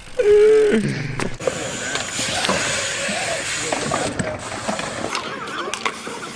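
BMX bike rolling on skatepark concrete, its rear hub ratchet clicking, with a few scattered clicks and knocks from the bike. Near the start a short held vocal sound falls away.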